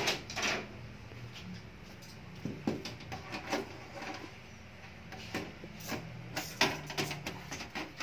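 Scattered clicks and light metallic knocks of a sheet-steel desktop PC case being handled as a side panel is fitted, more of them in the second half.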